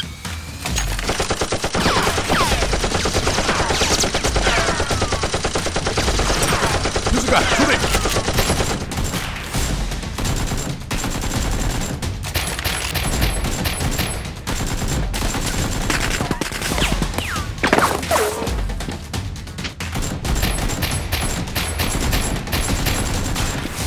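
Dubbed-in gunfire sound effects: long runs of rapid automatic fire, with several falling whistles like ricochets, over background music.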